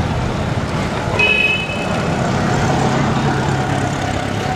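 Street traffic noise with motor vehicle engines running steadily, and a short high-pitched tone a little over a second in.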